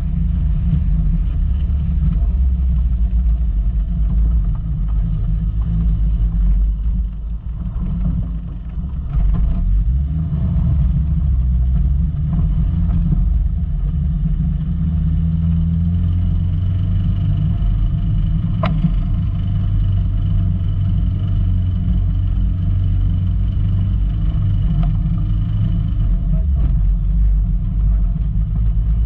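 Volkswagen Golf Mk2 driving off road: a steady low rumble of engine and rough-ground running, dipping briefly about seven seconds in. A single sharp click sounds about two-thirds of the way through.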